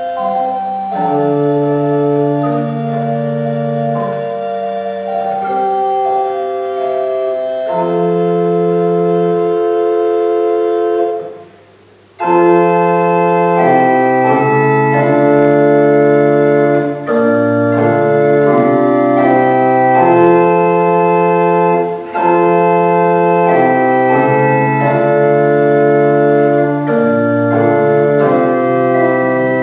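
Organ playing a hymn tune in slow, held chords. The music breaks off briefly about eleven seconds in, then resumes fuller and louder.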